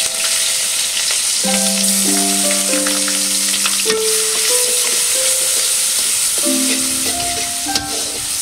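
Food frying in hot oil in a pan: a loud, steady sizzle with scattered small clicks, under a soft keyboard melody.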